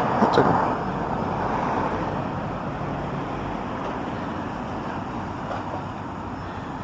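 Car noise: a steady rushing sound that slowly fades away.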